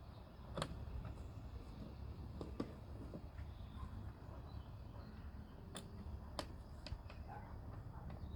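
Scattered sharp clicks and light taps from hands working car-door lock parts and linkage inside the door panel, with five or so clear clicks spread irregularly over a low, steady background rumble.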